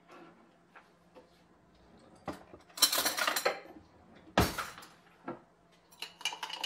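A spoon clinking against a glass jar as it stirs wet sprouting seeds in water. There are a few separate knocks and a brief cluster of clinks, then a quick run of clinks, about six a second, near the end.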